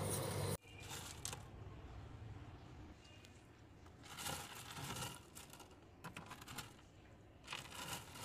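Fingers pressing into and scooping loose, defrosted freezer frost and ice chunks, with faint crackling crunches in a few short spells. A louder sound at the very start cuts off suddenly about half a second in.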